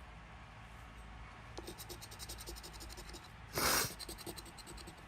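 Lottery scratch-off ticket being scratched: quick, rapid scraping strokes on the ticket's coating start about a second and a half in, with one short, louder rush of noise about three and a half seconds in.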